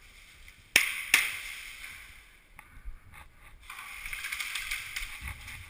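Two sharp airsoft gun shots in quick succession, less than half a second apart, each with a short ringing tail. A few faint clicks follow.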